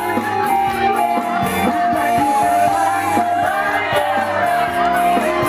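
Live band music played loud through a sound system, with voices shouting and singing over it.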